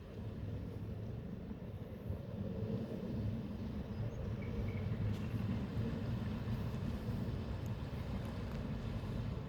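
Steady low rumble outdoors, growing a little louder about three seconds in.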